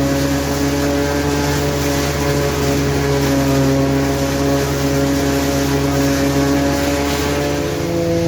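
Maize-chopping machinery at work: a forage harvester and tractor engine running steadily under load, a steady hum of several tones over a noisy rush. The pitch shifts near the end.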